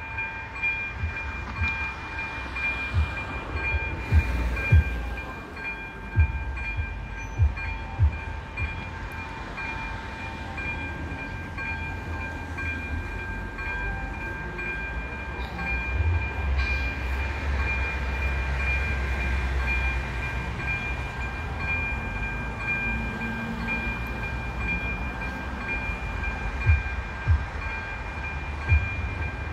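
Level-crossing warning bell ringing steadily while the crossing is closed ahead of a train. A low rumble swells about halfway through as a car pulls up and stops, and there are occasional low thumps.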